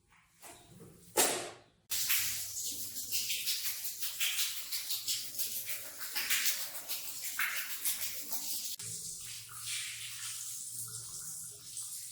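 Wet rug being worked with a cleaning tool: a brief loud swish about a second in, then a run of uneven, hissing, scratchy strokes through water that starts suddenly about two seconds in.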